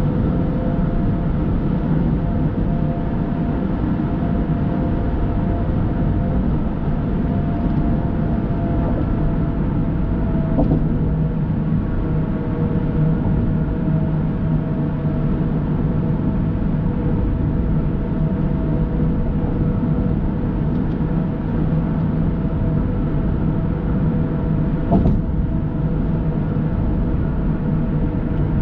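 Steady road and engine noise of a car cruising at highway speed, a low rumble with a steady hum, and a brief knock near the end.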